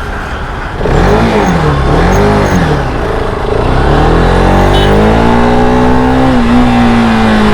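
Bajaj Pulsar RS200's single-cylinder engine revved twice in quick throttle blips. Its revs then climb steadily for about three seconds before levelling off.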